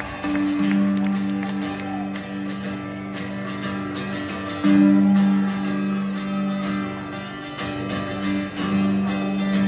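Celtic punk band playing live in a large hall, opening a song with strummed acoustic guitar over long held low notes, before any singing comes in.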